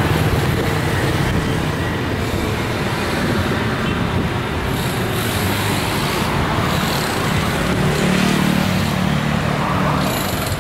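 Street traffic with vehicle engines running close by over a steady background of street noise; a low engine hum grows stronger near the end, as a vehicle passes.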